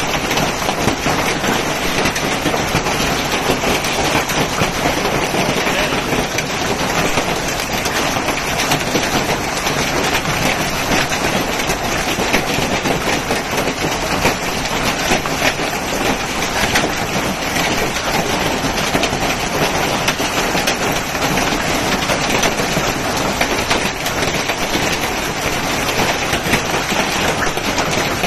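Hail storm with heavy rain: a loud, steady rush of countless small hailstone impacts pattering on pavement, lawn and a covered car.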